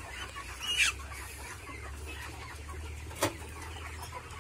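Hens clucking, with one sharp squawk that falls in pitch a little under a second in and a single short click at about three seconds, over a steady low hum.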